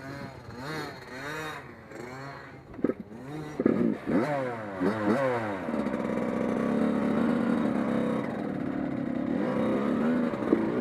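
Race car engines on a speedway, their pitch repeatedly rising and falling as cars rev and pass, with several quick drops in pitch near the middle, then settling into a steadier drone of engines at speed.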